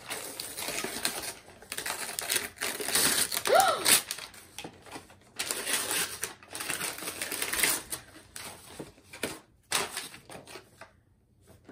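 Tissue paper crinkling and rustling as it is pulled off a boxed Funko Pop vinyl figure, a dense run of crackles that stops shortly before the end.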